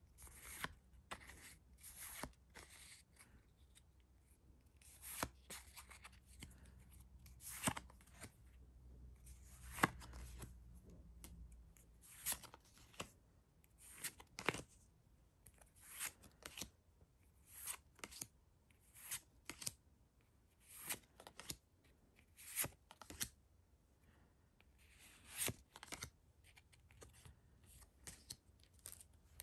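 Faint papery swishes and snaps of Pokémon trading cards being slid off a stack one at a time, about one every second, often in quick pairs.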